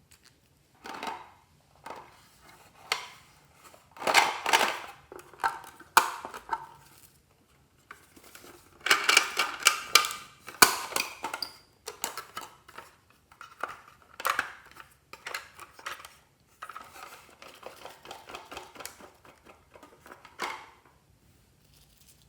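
Slime being mixed: irregular clicks and crackling bursts with some clattering, busiest in two spells in the first half.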